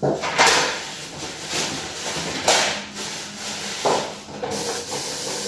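Toilet paper pulled off a wall-mounted roll, torn and folded in the hands: several short bursts of paper rustling.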